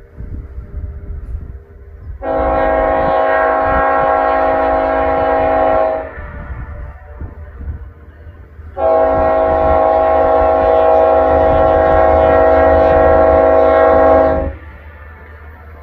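Multi-chime air horn on the lead BNSF diesel locomotive of an approaching stack train, sounding two long blasts. The first begins about two seconds in and lasts nearly four seconds; the second, longer one runs from about nine to fourteen seconds. A low rumble sits beneath.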